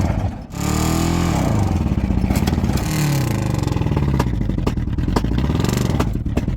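1986 Ford Ranger's 2.3-litre four-cylinder engine revving up and down in pitch several times, with scattered sharp clicks or knocks. It is running roughly, the engine that was struggling on three cylinders.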